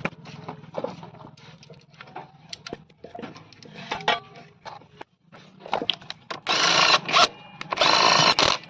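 Light clicks and knocks of tools on the motorcycle's clutch assembly, then near the end two short bursts of an impact wrench running down the clutch nut, a bit under a second each.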